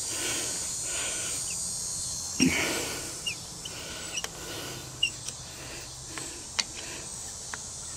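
Bolts being turned out of a Prowler trolling motor's housing with a hand nut driver, coming out easily: a few light metal clicks and ticks, the loudest about two and a half seconds in, over a steady faint hiss.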